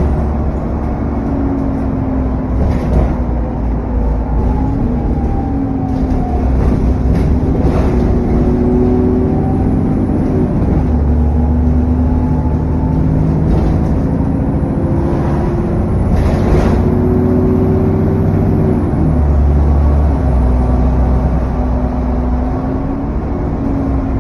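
Vehicle engine under way with its cooling fan thrashing and the turbo whining. The engine note climbs and drops several times as it pulls and eases off, with a faint high whine rising and falling above it. A few short knocks come through, about three seconds in, near the middle and again later.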